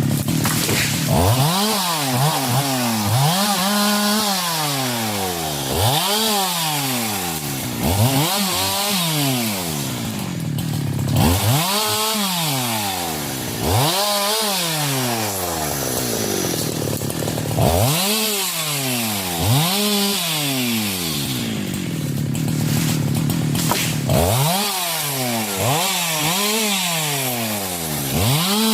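Two-stroke 372 chainsaw revving up and down over and over, about once every two seconds, each time climbing to full speed and dropping back, as it works on wood.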